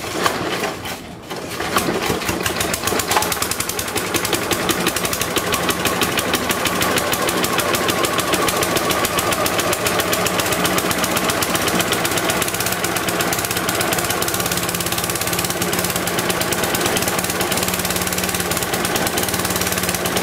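A Mountfield Emperor petrol lawnmower engine, not run for years, pull-started. It catches under two seconds in and then runs steadily with a fast, even beat.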